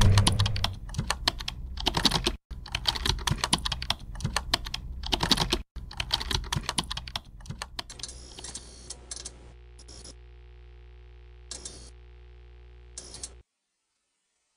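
Rapid typing on a computer keyboard: a dense clatter of keystrokes for about eight seconds, after a low rumble fades out at the start. The keystrokes then thin to a few short bursts over a faint steady hum, and everything cuts off abruptly about a second before the end.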